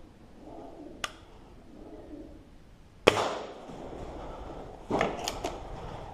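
An air rifle shot about three seconds in: a sharp crack with a short ringing tail in a small tin shed. A single click comes about a second in, and a quick cluster of clattering knocks follows nearly two seconds after the shot, with heavy breathing in between.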